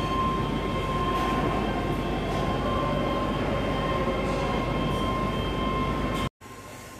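Steady industrial plant machinery noise: a constant low rumble with a steady high tone riding on it. It cuts off abruptly about six seconds in, leaving a much quieter background.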